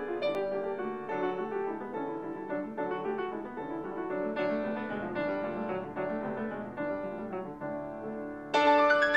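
Background piano music, gentle struck notes, with a louder chord and a rising run of notes near the end.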